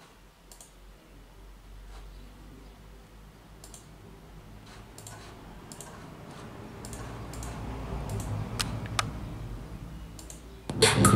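Scattered clicks of a laptop keyboard and touchpad, over a low rumble that slowly grows louder. Near the end a hip-hop track starts loudly from a JBL Charge 4 Bluetooth speaker.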